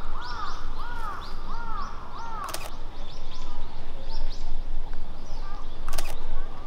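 A crow cawing about five times in quick succession, with smaller birds calling faintly around it. Two sharp clicks cut in, one midway and one near the end.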